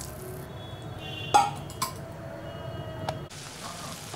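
Metal cookware clinking on a pan: two sharp clinks about half a second apart, the first the louder, each ringing briefly, over a low steady hum.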